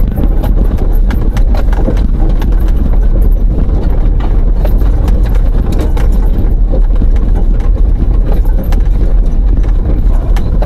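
A vehicle driving slowly over a rough, stony dirt track: a steady low rumble of engine and tyres with constant irregular knocks and rattles from the bumps.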